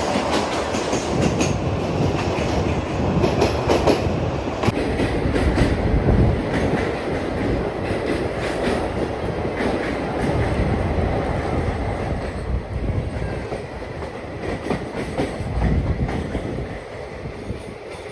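Passenger train running at speed through a tunnel, heard from an open coach door: a steady, dense rumble of wheels and carriage with repeated knocks from the rails, echoing off the tunnel walls. It grows quieter near the end as the train comes out into the open.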